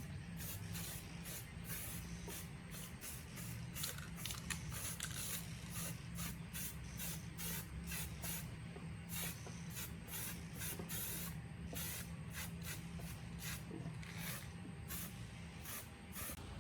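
Many short hissing spray bursts in quick, irregular succession, over a low steady hum.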